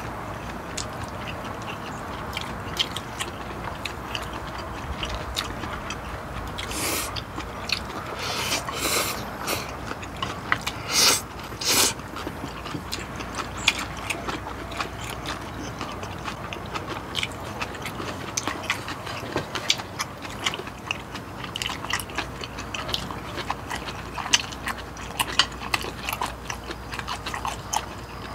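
Close-miked eating sounds of two people having mala xiang guo and pork-bone gamjatang: steady chewing and mouth smacks with small clicks of chopsticks and spoons, and a few louder slurps in the middle.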